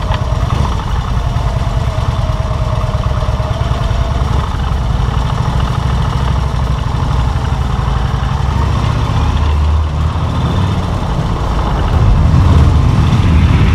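Motorcycle engine running steadily while riding through a short road tunnel, getting louder near the end.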